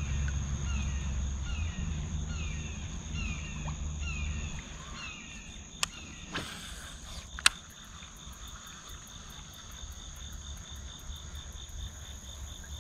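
Steady high-pitched chorus of crickets and other insects by a river, with a short falling chirp repeating about every 0.7 s through the first half. Two sharp clicks and a brief rush of noise come about six to seven and a half seconds in.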